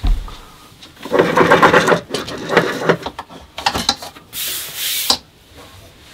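Belongings being handled and put away in a small room: a knock, then several bouts of rustling and rubbing with light knocks, and a short hiss about four seconds in that ends in another knock.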